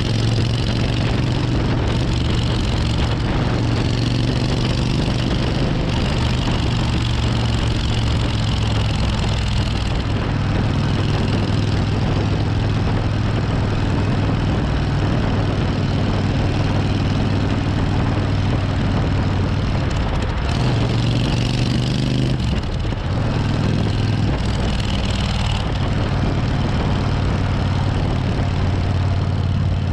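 1994 Suzuki Intruder 1400's V-twin engine running steadily while the motorcycle is ridden, heard together with road and wind noise. The engine note shifts briefly about two-thirds of the way through, then settles again.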